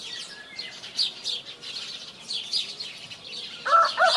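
Small songbirds chirping in quick, repeated high notes. Near the end a rooster begins to crow, one long call that is louder than the birdsong, as a morning wake-up sound.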